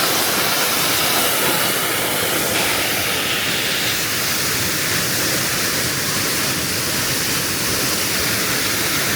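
Waterfall rushing close by: a steady, loud wash of falling water.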